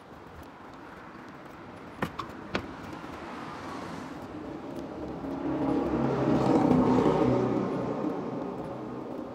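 Street traffic: a motor vehicle's engine and road noise swell close by, loudest about two-thirds of the way through, then ease off. Three short sharp clicks about two seconds in.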